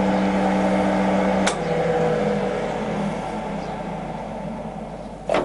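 Colchester Student centre lathe running in its 70 rpm spindle speed, a steady motor and headstock gear hum. A click comes about a second and a half in, after which the running sound drops in pitch and slowly fades, as it does when the spindle coasts down before a gear change. Another click comes near the end.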